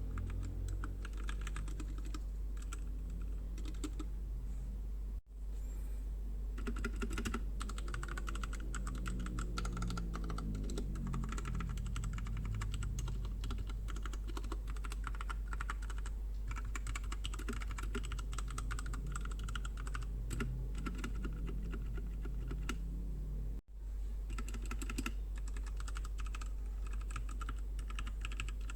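Continuous fast typing on a Royal Kludge RK61 60% mechanical keyboard, keys clacking in a dense stream. It comes in three takes, split by two abrupt cuts about 5 and 24 seconds in, over a steady low hum.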